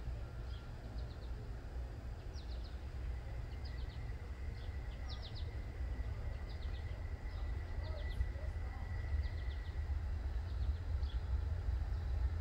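Songbirds chirping in short, repeated calls over a low rumble that grows louder toward the end as a freight train approaches in the distance.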